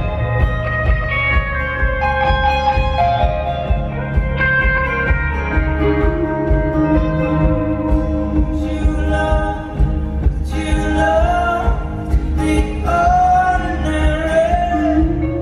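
Live rock band playing an instrumental passage, with electric guitars carrying a melodic lead over a steady full-band backing.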